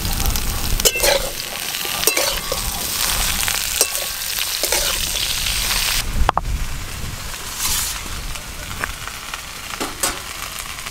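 Bottle gourd greens with potatoes and aubergine sizzling in hot oil in a wok, with a few sharp clicks. After about six seconds the sizzle drops to a quieter hiss.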